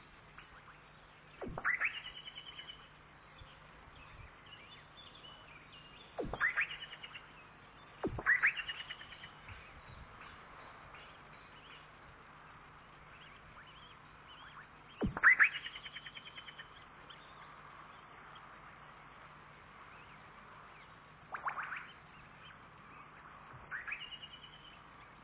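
Osprey calling: six high, rising whistled calls a few seconds apart, each a fast run of notes sweeping up and ending on a short held note. The loudest comes a little past the middle.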